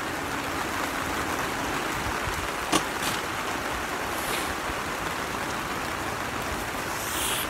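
Steady patter of rain on the plastic film of a greenhouse, with one sharp knock a little under three seconds in.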